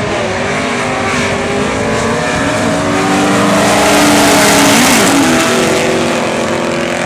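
Two drag-racing engines, a VW Beetle's air-cooled flat-four and a pickup's engine, at full throttle accelerating down the strip, rising in pitch. They are loudest as the cars pass close by about four seconds in, then fade as they run away down the track.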